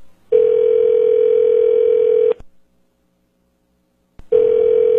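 Telephone ringback tone: a steady hum-like tone for about two seconds, a two-second pause, then the tone again about four seconds in, as an outgoing call rings at the other end.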